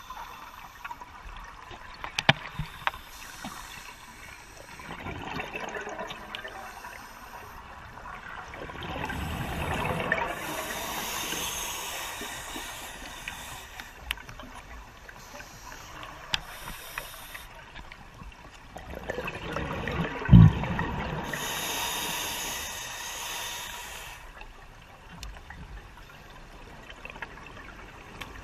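Scuba diver's regulator breathing underwater: two long rushes of exhaled bubbles a few seconds each, separated by quieter stretches. Scattered clicks, and one sharp low thump just as the second rush builds.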